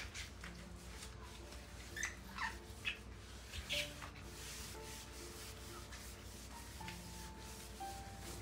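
Gloved hand wiping and scrubbing the rim of a stainless steel sink and the countertop, with a handful of short squeaky rubbing strokes between about two and four seconds in. Soft background music plays underneath.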